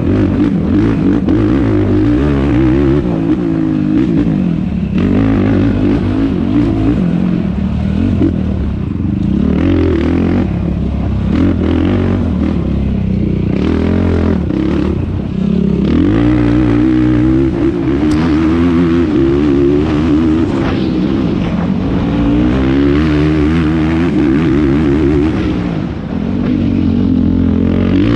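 Yamaha YFZ450R quad's single-cylinder four-stroke engine at race throttle, its revs sweeping up and down again and again as it accelerates and shifts, with knocks and clatter from the machine over rough ground. The revs drop briefly near the end.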